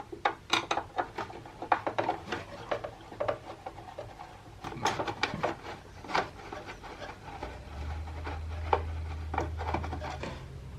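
Irregular clicks, knocks and rubbing from the plastic casing and parts of a teardown defibrillator being handled. A low steady hum comes in about three-quarters of the way through.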